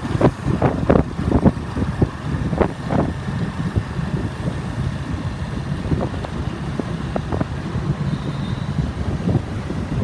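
Motorbike ride through city traffic: a low engine and road rumble with wind buffeting the microphone in sharp gusts, most often in the first three seconds.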